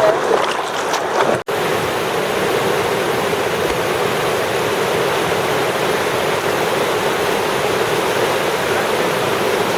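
Raging river rushing steadily with a loud, even roar, broken by a sudden short dropout about a second and a half in.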